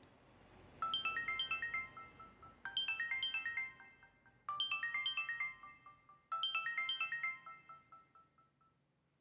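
Samsung Ch@t 335 mobile phone playing a ringtone melody through its speaker: a short phrase of quick high notes, repeated four times about two seconds apart, each phrase dying away.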